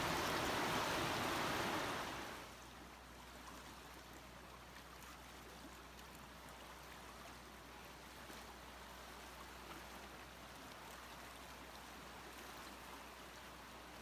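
Fast-flowing river water rushing past a turning waterwheel, a steady even rush. It is loud for about the first two seconds, then drops suddenly to a quieter, steady rush.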